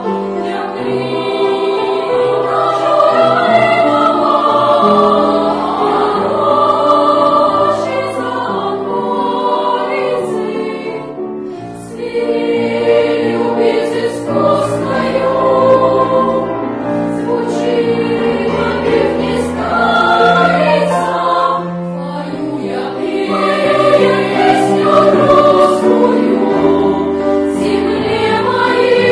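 Children's choir of girls and boys singing together under a conductor, in long held phrases with a brief pause for breath about twelve seconds in.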